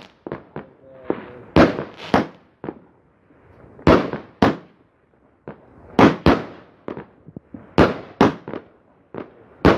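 Fireworks going off: loud, sharp bangs, mostly in pairs about two seconds apart, with fainter cracks in between.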